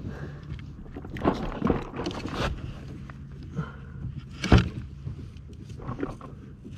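A boat motor runs with a steady low hum while several sharp knocks sound on the boat, the loudest about four and a half seconds in.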